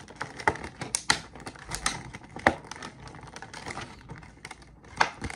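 Rigid clear-plastic clamshell packaging crackling and snapping as it is bent and pried open by hand. The clicks come irregularly, with a sharp snap about two and a half seconds in and another near the end.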